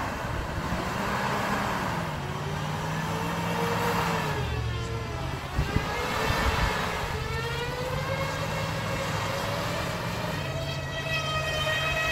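Stuck tow truck's engine revving while its tyres spin in packed snow, making a whine that slowly slides up and down in pitch as the wheels speed up and slow. The wheels are spinning without grip and the truck is stuck. The whine climbs near the end.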